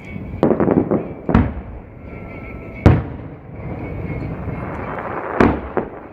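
Aerial fireworks going off: a string of crackling pops, then three sharp booms about a second and a half apart, the loudest near the middle, each followed by an echoing rumble.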